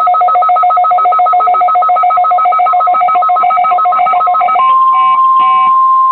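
Electronic alert tones from a NOAA Weather Radio test broadcast: a fast two-tone warble, about seven chirps a second, gives way after about four and a half seconds to a single steady tone near 1 kHz, the weather radio warning alarm tone.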